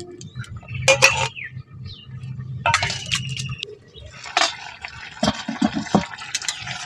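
Stone pestle grinding cumin on a flat stone slab, with a sharp knock about a second in. Near the middle a metal wok lid clinks and rings as it is lifted, and then the fish curry bubbles in the open wok.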